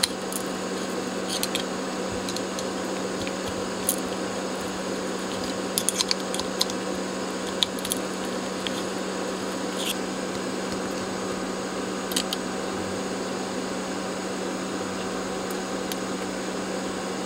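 Small flat-blade screwdriver levering bucket-brigade delay chips up out of their IC sockets on a circuit board: a few scattered light clicks and scrapes, with a small cluster about six seconds in, over a steady background hum.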